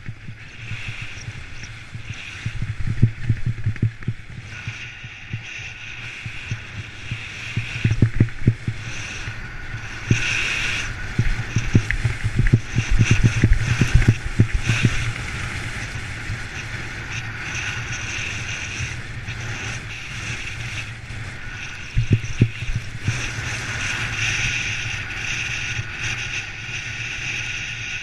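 Skis running over snow on a downhill run, with wind rushing over a body-worn action camera's microphone. Bumpy stretches of low thuds come a few seconds in, again through the middle, and once more near 22 seconds.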